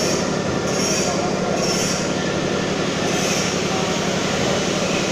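Trumpf CNC punch press running, a steady, dense mechanical clatter of rapid punching strokes over a constant hum, with short high hissing swells about once a second.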